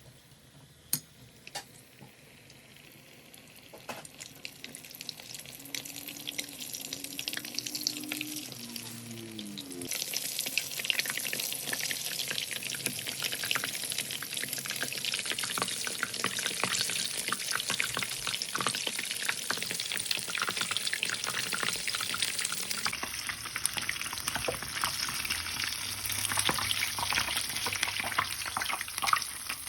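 Batter-coated corn dogs frying in hot oil, a dense sizzle that builds over the first ten seconds and then stays loud. A couple of sharp clinks come about a second in.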